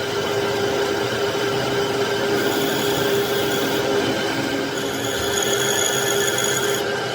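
A machine tool running steadily with a constant hum. A higher whine comes in twice partway through, as when the tool cuts into the metal.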